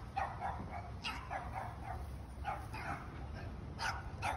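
A dog barking repeatedly in short clusters of quick barks, over a steady low background rumble.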